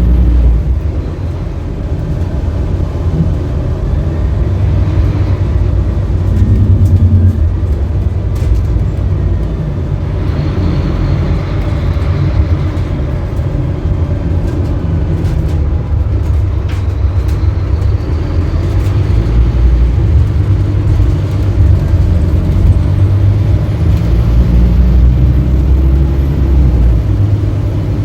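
Diesel engine of a 2018 Scania K310UB city bus running under way, its steady low drone swelling and easing as the bus pulls away and slows.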